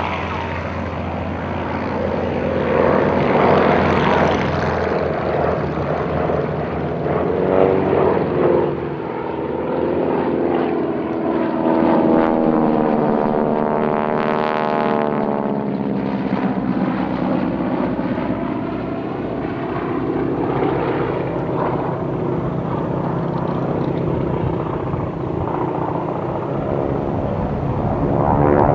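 Spartan 7W Executive's Pratt & Whitney R-985 Wasp Junior radial engine droning in flight, the propeller sound swelling and fading as the aircraft pass by during a flying display.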